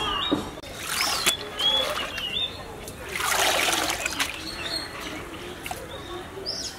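Water splashing as a plastic colander is swished in a drum of water, then a gush of water draining out through its slots as it is lifted, about three seconds in. Birds chirp now and then.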